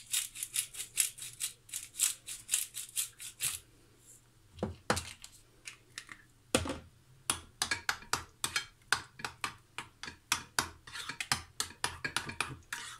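A utensil stirring sauce in a bowl, clicking rapidly against the sides in quick runs, with two louder knocks in the middle.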